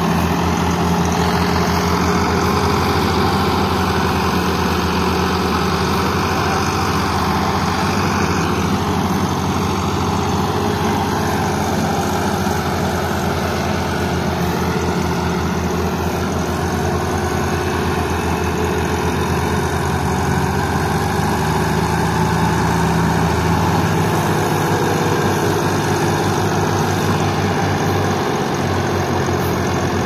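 Diesel engines of a tractor and a combine harvester running steadily under heavy load in a tug-of-war pull, the tractor's engine labouring. About three-quarters of the way through, the deepest part of the engine note drops away.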